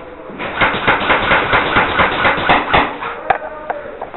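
A rapid string of airsoft gun shots, about seven sharp cracks a second for some two and a half seconds, followed by a few scattered single shots.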